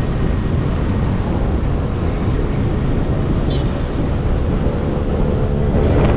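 Wind rushing and buffeting over an action camera's microphone, with rumbling road and tyre noise, while riding a Kaabo Wolf King electric scooter at speed.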